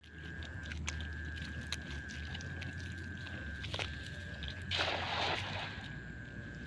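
A cast net hitting the water and splashing once, briefly, about five seconds in. A steady high thin whine runs underneath throughout.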